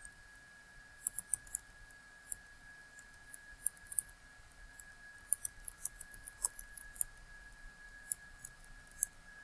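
Computer keyboard keys being tapped in irregular short runs while a search query is typed, over a faint steady high tone.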